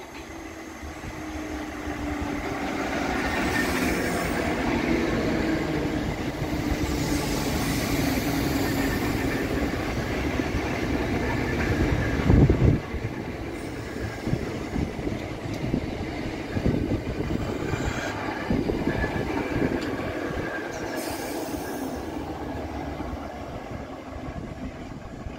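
Southeastern Class 465 Networker electric multiple unit running in along the platform, growing louder as it nears. Its motor whine falls steadily in pitch as the train slows. There is one loud thump about twelve seconds in and a run of wheel knocks a few seconds later.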